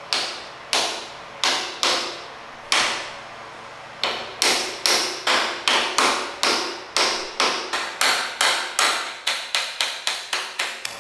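Hammer blows, each with a short ring. Five spaced strikes come first, then after a short pause a steady run of about twenty that quicken toward the end.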